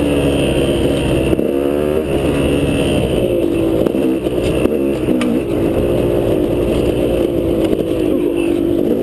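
KTM 200 two-stroke dirt bike engine running under the rider, its pitch rising and falling as the throttle opens and closes over rough singletrack. A few sharp knocks come about halfway through.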